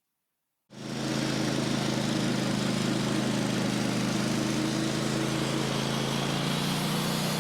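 An engine running at a steady, unchanging speed with a constant hum, cutting in abruptly about a second in.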